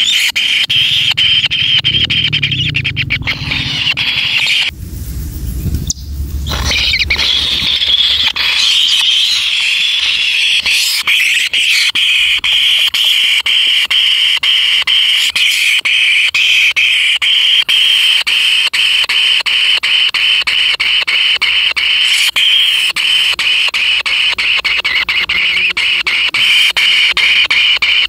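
Kingfisher nestlings giving continuous harsh, rapidly pulsed, high-pitched begging calls. The chorus drops out for about a second and a half around five seconds in, where a low rumble takes over, then resumes.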